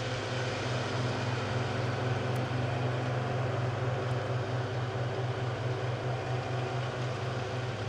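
New Holland grape harvester running steadily while harvesting a vineyard row: engine drone together with its beater rods shaking the berries off the vines and fans blowing the leaves out.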